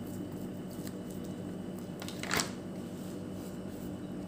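Hands working soft rice-flour dough in a bowl, a soft rubbing and squishing, with one brief louder rustle a little past halfway, over a steady low hum.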